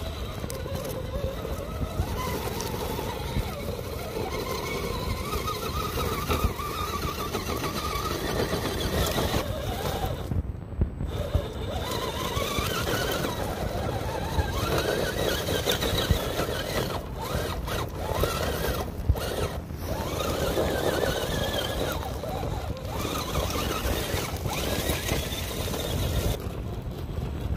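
The electric motor and geared drivetrain of a 1/10-scale FTX Hi-Rock RC rock crawler whining, its pitch rising and falling with the throttle as it crawls over loose rock. The sound drops out briefly twice.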